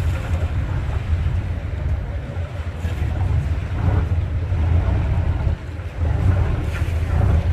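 Boat engine idling with a steady low rumble, mixed with wind buffeting the microphone.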